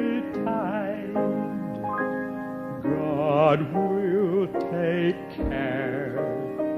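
A man singing a southern gospel song solo, his held notes wavering with vibrato, over a steady instrumental accompaniment.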